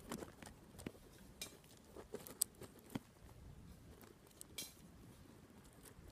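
Metal hand trowel digging into soil, giving faint, irregular scrapes and small clinks as it strikes and scrapes through the earth and grit.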